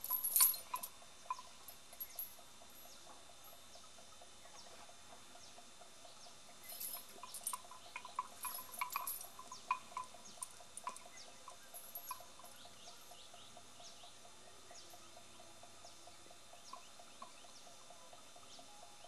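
Faint, scattered metallic clinks of a chain hung around a walking Asian elephant's neck, coming in loose clusters, over a steady faint hum.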